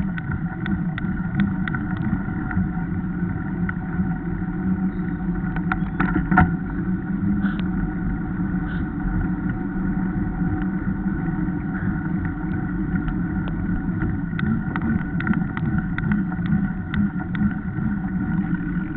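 Wind rushing over the microphone and tyres running on tarmac during a fast mountain-bike descent, a steady noise with frequent small rattles and clicks from the bike and camera mount going over bumps. One louder knock comes about six seconds in.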